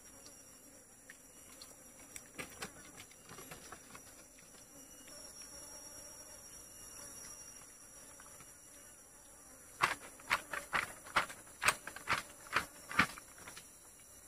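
Forest insects buzzing steadily in a high-pitched drone. Near the end, a quick run of about nine sharp knocks over some three seconds stands out above it.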